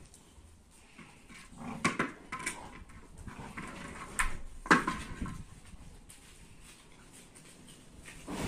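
Dogs playing rough over a ball, with short sharp dog outbursts about two seconds in and again just before five seconds, the second the loudest.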